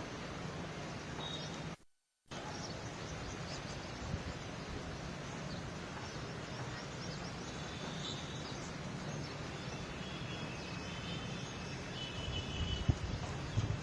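Outdoor ambient noise with birds chirping on and off. The sound cuts out briefly about two seconds in, and a few knocks sound near the end.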